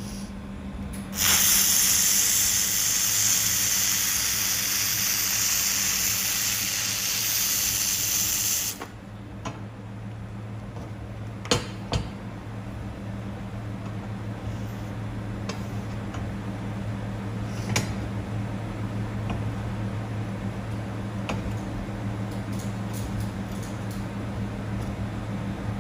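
Handheld fiber laser welder firing on mild steel: a loud, steady hiss of shielding gas and weld for about seven and a half seconds, stopping suddenly. Afterwards the machine's steady low hum continues, with a few sharp clicks.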